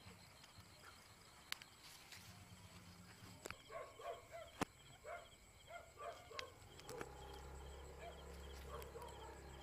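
Faint night-time field ambience: quick, evenly pulsing insect chirps run on high and quiet, with a few sharp clicks from hands brushing the leaves. A scatter of short faint calls comes in the middle, and a low hum sets in about seven seconds in.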